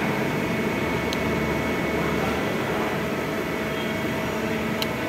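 CNC vertical lathe running: a steady mechanical whir with a faint high steady tone, and two light clicks, about a second in and near the end.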